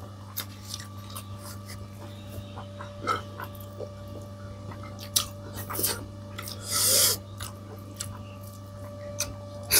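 Eating sounds of a person chewing and handling food: scattered small clicks and smacks, a couple of louder ones about five and six seconds in, and a short breathy snort about seven seconds in, over a steady low hum.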